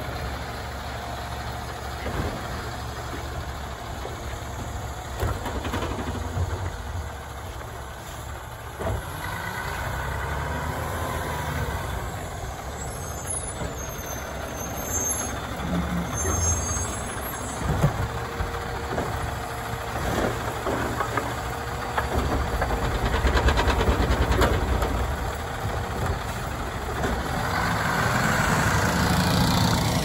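Autocar ACX garbage truck with a Labrie Automizer side-loading arm running at the curb while its automated arm handles a trash cart, with sharp knocks about nine and eighteen seconds in. The truck grows louder for a few seconds past the twenty-second mark and again near the end as it pulls away.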